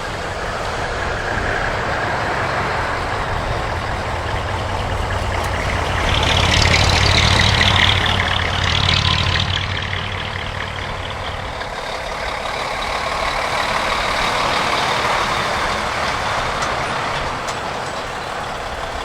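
Heavy Japanese art truck (dekotora) engine running as the truck moves past, growing loudest about six to nine seconds in with a rush of hiss, then easing off.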